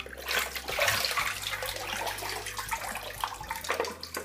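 Bathwater splashing and water pouring out of a plastic toy boat as it is lifted and tipped to empty it.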